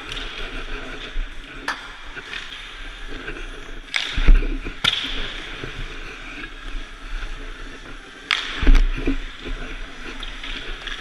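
Hockey skate blades scraping across the ice in an echoing rink, with several sharp knocks of pucks and sticks, the loudest about four seconds in and again about eight and a half seconds in.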